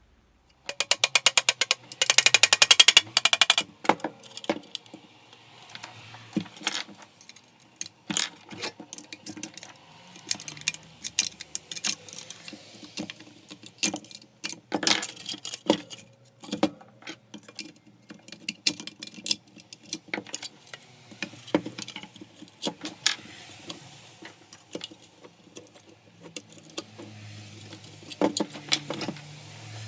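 Parts of a Makita belt sander being handled during disassembly: scattered clicks, knocks and clinks of small plastic and metal pieces. A fast run of rapid clicking, the loudest sound, comes about a second in and lasts a couple of seconds.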